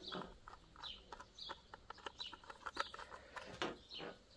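Birds calling in the background, short falling chirps and clucks every half second or so, over faint clicks and scrapes from a Phillips screwdriver working a terminal screw on a solar charge controller.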